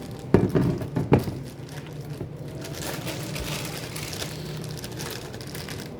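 Two sharp knocks of kitchenware being handled about half a second and a second in, over the steady low hum of a running microwave heating butter and marshmallows.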